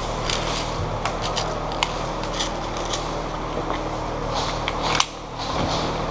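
Airsoft play: a steady rumble of handling and movement noise on the microphone with scattered faint clicks of airsoft gunfire and BB hits, and one sharp crack about five seconds in.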